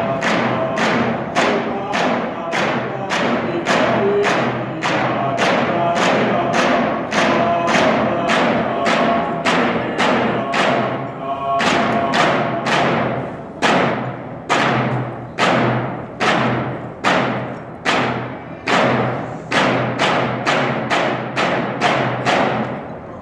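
Alaska Native frame drums beaten in a steady rhythm of about two to three strokes a second, with a group singing a chant over them. The singing fades about halfway through, and the drumbeats carry on alone.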